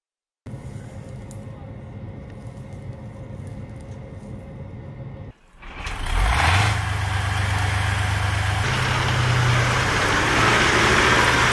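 T-72A tank's V-12 diesel engine. It runs quietly for the first few seconds, then, much louder, revs up about six seconds in and runs hard as the tank drives off, its pitch stepping up again a little later.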